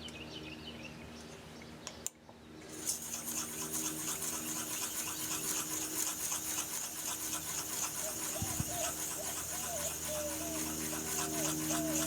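Steel turning tool being honed on a sharpening stone: a steady run of rapid gritty rubbing strokes that starts about three seconds in. Small bird chirps sound faintly over it.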